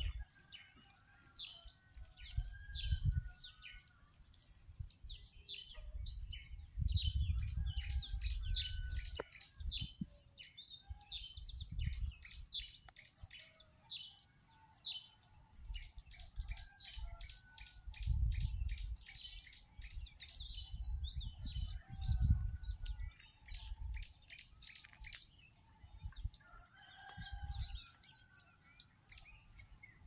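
Many small birds chirping and calling in a dense, continuous morning chorus of rapid high chirps, with some lower warbling notes. Several low rumbles break in at intervals.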